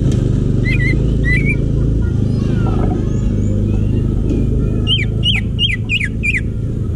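Green leafbird (cucak ijo) singing: two short warbled notes about a second in, then a quick run of six descending whistled notes about five seconds in. Underneath is a steady, loud low rumble.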